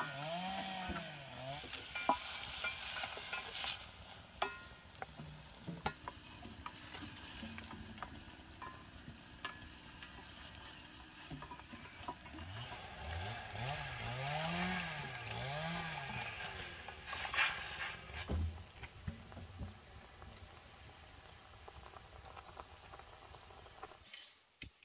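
Wooden chopsticks stirring and clicking against a metal pot over a wood fire, with the pot sizzling.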